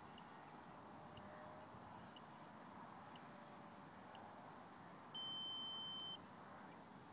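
A single steady high-pitched electronic beep, about a second long, near the end, over faint background hiss. Before it come very faint short high pips, about one a second.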